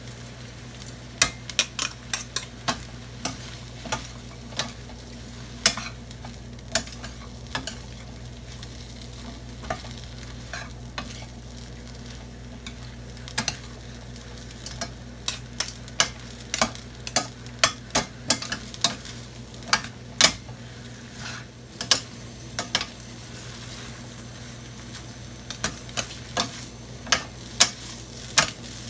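Glass noodles, napa cabbage and bean sprouts sizzling in a stainless steel skillet, tossed with two utensils that scrape and clack against the pan in quick, irregular strokes. The strokes pause briefly about three quarters of the way through, over a steady low hum.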